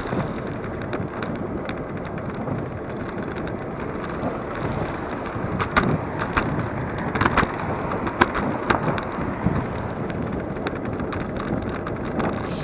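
Superpedestrian electric scooter riding along a road: wind buffeting the microphone over the rumble of its small wheels on the tarmac, with several sharp knocks and rattles around the middle.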